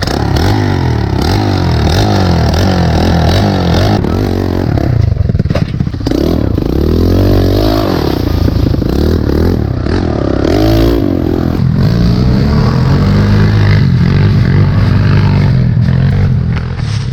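Pit bike engine being ridden hard on a dirt track, its pitch repeatedly rising and falling as the throttle is opened and closed, with the bike rattling over rough ground.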